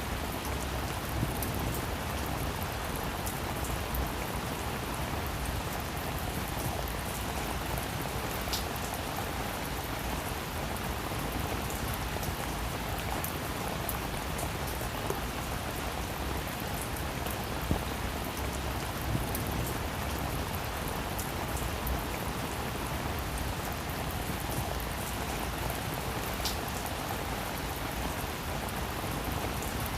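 Heavy rain falling steadily, a dense even hiss with many small drop ticks scattered through it.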